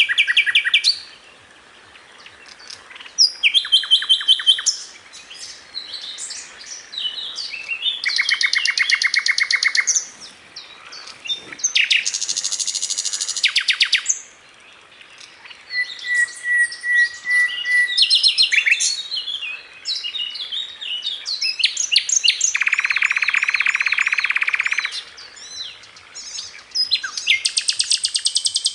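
Sikatan londo flycatcher song as used for masteran: a quick string of high-pitched chirps, rapid rattling trills and buzzy phrases, each lasting a second or two with short pauses between. About three-quarters of the way through comes a longer, lower buzzing trill.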